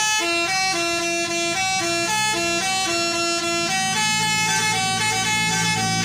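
Bus basuri telolet horn playing a tune: a loud string of held, stepped notes with no break, a low drone joining in about halfway.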